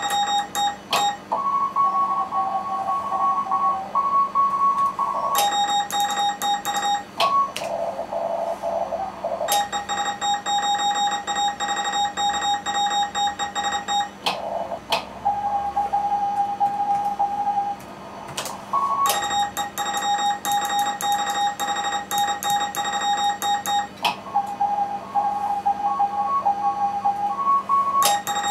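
Morse code (CW) on a ham radio contest station: the station's own keyed sidetone, a buzzy beep near 800 Hz, takes turns with other stations answering in Morse at slightly different pitches through the receiver's hiss and static. A steady low hum lies under it all.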